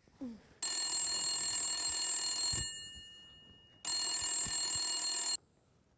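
Corded desk telephone ringing twice for an incoming call. Each ring lasts one and a half to two seconds, with a pause of about a second between them.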